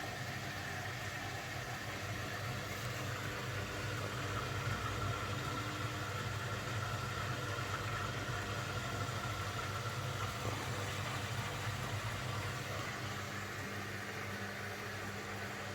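Beko washing machine's drain pump running steadily, pumping the water out of the drum, with a low hum and a fainter higher whine that fades about two-thirds of the way through.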